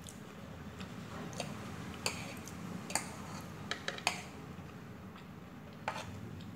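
Metal fork clinking and scraping against a plate while scooping noodles: about six sharp clinks, the loudest a couple of seconds in and around the middle.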